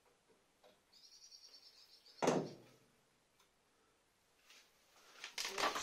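Metal handling noises at a scroll saw's blade clamp as the blade is refitted: a faint rattle for about a second, then a single loud clunk a little over two seconds in. Near the end come a run of clicks and rustling.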